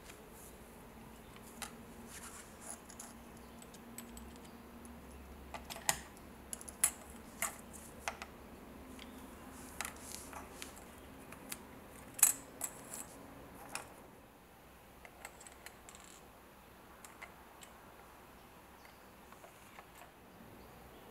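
Small metal and plastic parts of a compass gear mechanism clicking and clinking as a screwdriver works on them and they are set down on a wooden table: scattered sharp taps, thickest in the first two-thirds, with the loudest one about twelve seconds in, then fewer and fainter.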